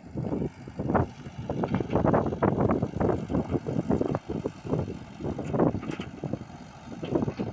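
Komatsu PC78UU mini excavator at work: diesel engine running under load, with uneven scraping and clattering as the bucket drags through loose soil.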